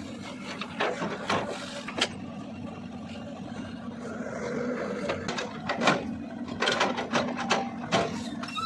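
CAT 320DL long-arm excavator's diesel engine running steadily under load, with scattered sharp knocks from the working machine, the loudest about six seconds in.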